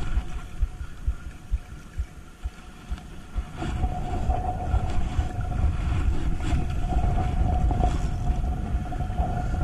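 Wind buffeting the microphone as a heavy, uneven low rumble. It grows louder about three and a half seconds in, when a steady mid-pitched hum joins it.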